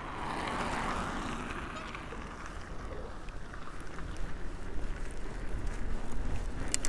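Wind rumbling on the microphone of a camera on a fatbike being ridden along a snowy road, growing louder toward the end. A hiss fades out over the first two seconds, and there is a short click near the end.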